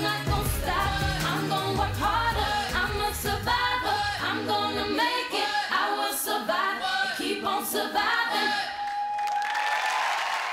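Pop song with a lead singing voice over a heavy bass beat; the bass and beat drop out about halfway through. Near the end the voice holds one long note, under a rising swell of noise.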